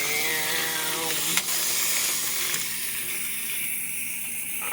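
Wind-up toy space shuttle's clockwork motor whirring as it runs, a steady high hiss. A person's drawn-out voiced sound is heard in the first second or so.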